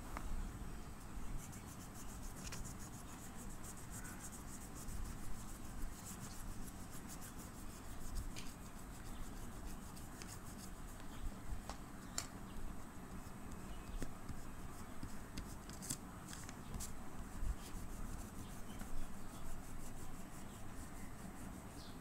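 Oil pastel rubbed and scraped across paper in shading strokes, with faint rustling of the sheet and a few light ticks.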